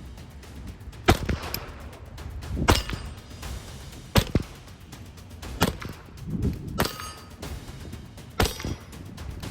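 Six single shots from a Hammerli Forge H1 1911 .22 LR pistol, about one every one and a half seconds, some followed by the short ring of a struck steel plate.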